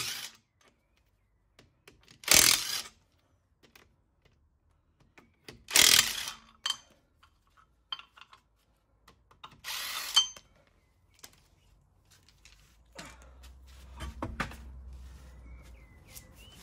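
A cordless power tool with a socket spinning out a steel wheel's bolts in four short bursts a few seconds apart. Near the end come handling noises and knocks as the wheel is pulled off the hub.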